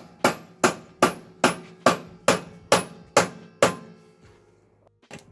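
A hammer striking metal in a quick, even run of about ten ringing blows, roughly two or three a second, that stops about two-thirds of the way through.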